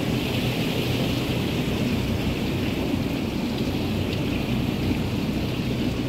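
600-ton cooling tower running: water falling through the fill and splashing into the basin as a steady rain-like hiss, with a steady low rumble underneath.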